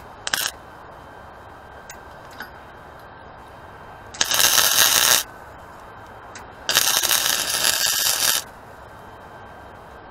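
MIG welder tack-welding a shock absorber mount onto a steel tube frame. There is a brief arc strike near the start, then two welds of about one second and a second and a half, each a steady crackling hiss.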